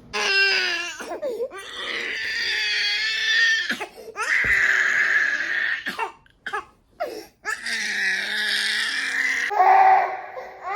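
A 14-month-old toddler crying in a series of long, high-pitched wails with short breaks between them.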